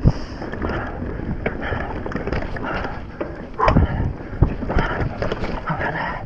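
Transition Spur mountain bike ridden hard down a dirt trail: tyre noise and frame and chain rattle, with irregular thumps over bumps, wind on the microphone, and the rider breathing heavily.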